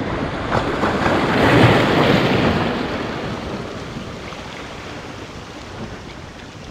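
Sea waves breaking and washing over the rocks of a breakwater, swelling to their loudest about two seconds in and then slowly ebbing away.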